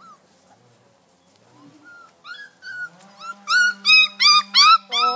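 Labrador puppies yelping in rough play: a few squeaky cries about two seconds in, then a run of five loud, high-pitched yelps near the end. The cries come as black puppies pick on the yellow ones.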